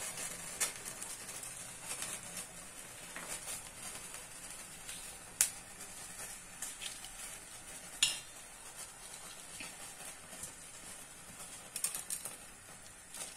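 Knife cutting fresh green chillies into large pieces on a cutting board: scattered sharp taps and clicks, a few seconds apart, over a faint steady hiss.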